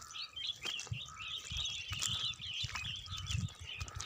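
A flock of small birds chirping continuously, many calls overlapping, with irregular low thumps underneath.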